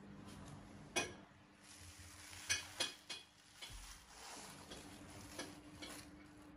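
Several faint, sharp clicks and taps from things being handled, the strongest about a second in and a quick cluster of three around the middle, over a faint steady low hum.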